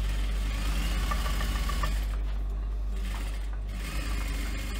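Global industrial sewing machine stitching through faux leather, its needle working in rapid strokes over a steady low motor hum, in short runs with brief pauses.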